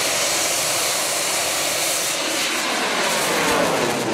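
Bang fai, a homemade black-powder festival rocket, firing off its launch tower: the motor gives a loud, steady hissing rush as it climbs, easing a little in the second half.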